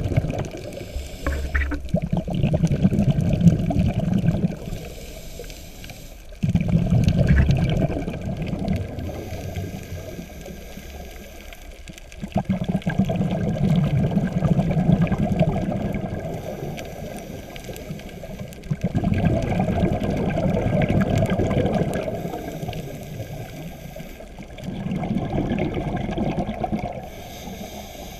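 Scuba diver breathing through a regulator underwater: a few seconds of rumbling exhaled bubbles alternate with a quieter stretch and a faint high inhalation hiss, about one breath every six seconds.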